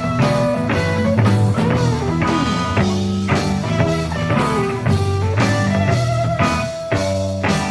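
Psychedelic blues-rock instrumental: electric guitars, bass and drum kit playing a steady groove, with guitar notes bending in pitch.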